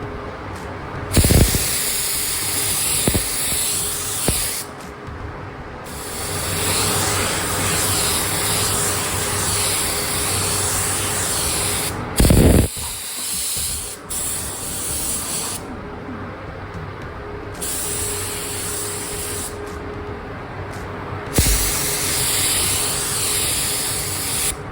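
Paint or primer spraying in long bursts of hiss that stop and start several times, with three short low thumps, the loudest about halfway through.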